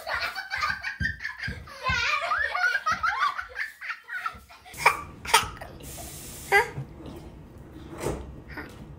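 People laughing hard in quick, rippling peals for the first half. After a change of background, a toddler gives a few short separate laughs.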